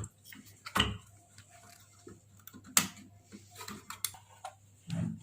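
Light clicks and taps at irregular intervals, a second or two apart, from fingers pressing the buttons of a microwave oven's membrane keypad, over a faint steady hum.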